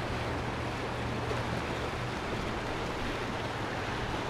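Steady rushing of a fast-flowing mountain river over riffles.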